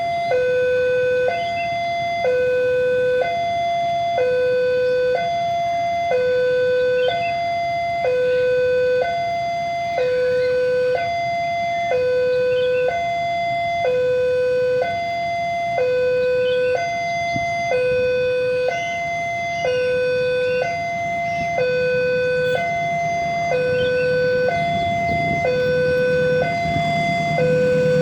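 Indonesian railroad level-crossing warning alarm sounding, an electronic two-tone signal alternating between a lower and a higher tone about once a second, warning that a train is coming. Near the end a low rumble builds as the train approaches.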